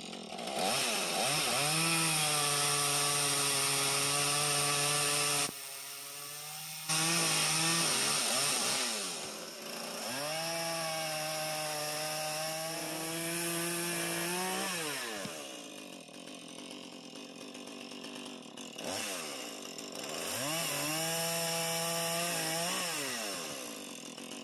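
Two-stroke gas chainsaw revving up to full throttle and held there while cutting through log rafter ends, three times, dropping back toward idle between cuts.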